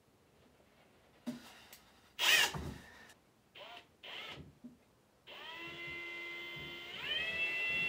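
Cordless drill with an empty toilet-paper tube in its chuck, winding paper off a roll: a few short trigger bursts with a rising whine, then running steadily from about five seconds in, its whine stepping up in pitch near the end.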